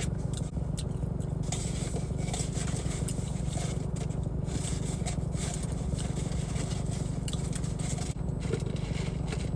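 Steady low rumble inside a parked car with the engine left running, which the owner takes for the air conditioning, with intermittent light scraping and rustling over it.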